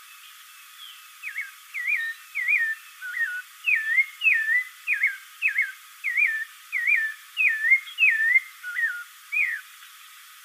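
Spectacled thrush (Turdus nudigenis) singing a run of short, clear whistled notes, about two a second. Each note dips and then hooks back up in pitch; the run starts about a second in.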